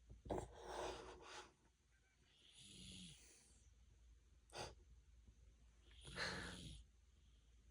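A man snoring in his sleep: four noisy breaths spaced one to three seconds apart, two of them with a low buzz, and one short sharp one about halfway through.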